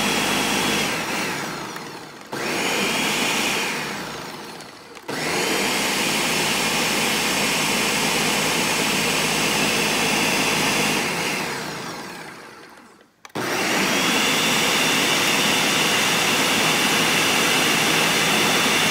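Countertop blender with a large 72-oz pitcher pureeing a thick green pepper-and-herb seasoning paste (Haitian epis). The motor runs in four bursts, each ending in a falling wind-down before it starts again: two short runs in the first few seconds, then two longer steady runs of about six seconds each.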